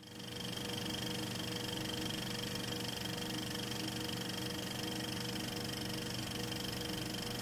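Steady mechanical whirr with hiss and a few held tones, like an old film projector running, fading in at the start and then holding even.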